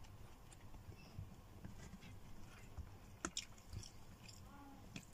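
Faint close-up chewing of food with the mouth closed, with a couple of short soft clicks a little past the middle.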